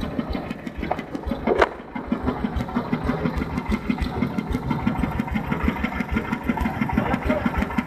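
Engine-driven mobile rice-milling machine running steadily with a fast, even pulsing beat. One short, louder sound about one and a half seconds in.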